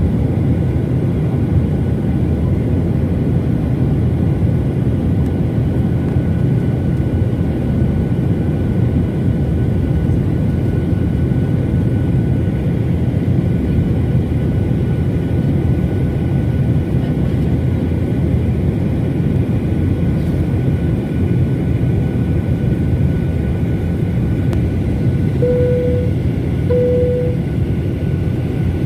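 Steady noise of jet engines and airflow inside a Boeing 737 cabin in flight, with a faint constant whine. Near the end come two short cabin chimes on the same note, about a second apart.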